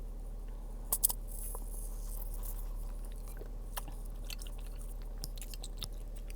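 A person chewing crunchy fried food close to the microphone, with small crisp crunches throughout. A sharp double crunch about a second in is the loudest.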